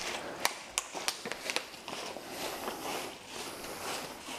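Soft rustling of a cotton judo gi as a man in a low squat moves a plastic bottle overhead, with a few sharp clicks in the first second and a half.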